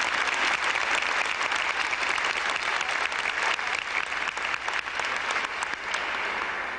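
A large audience applauding steadily, starting to die down at the very end.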